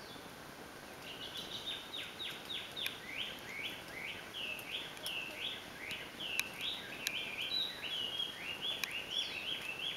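A bird singing a long run of quickly repeated slurred whistled notes, about three a second, starting about a second in.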